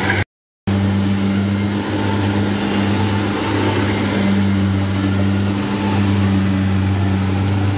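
Rice combine harvester's diesel engine running steadily under load while it cuts and threshes rice, a loud unbroken deep hum. The sound drops out completely for a moment about a third of a second in.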